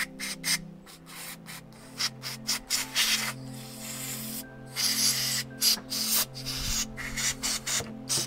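Aerosol carb cleaner sprayed into a carburettor in a rapid series of short spurts, with a couple of longer sprays in the middle, over steady background music.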